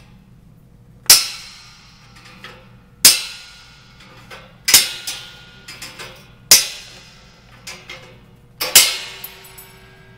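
Wire cutters snapping through the wires of a machine-guard mesh panel: five sharp cuts about two seconds apart, each with a short metallic ring, with lighter clicks between them.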